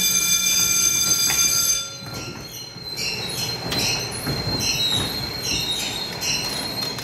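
A carnival water race game's race-unit drive mechanism running as the units travel down their vertical tracks: a steady high-pitched whine for about the first two seconds, then a quieter rhythmic squeak repeating about every 0.7 s over a thin high tone.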